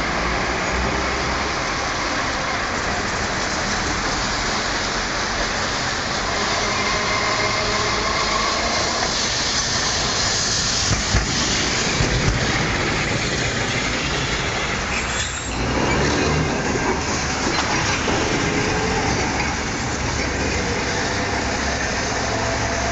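Dalian's old-type tram car running past close by on its street track, its wheels rumbling and clattering on the rails with a faint whine partway through, over steady city traffic noise.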